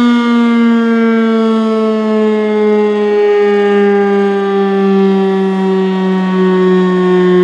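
Federal Signal STH-10 electromechanical outdoor warning siren sounding its single steady tone, the pitch sliding slowly downward as the siren winds down from its 30-second alert.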